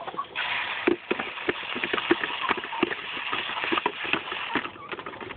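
Chicken feed being poured into a feed dish: a steady rattling hiss of grain that stops near the end, with scattered sharp knocks throughout.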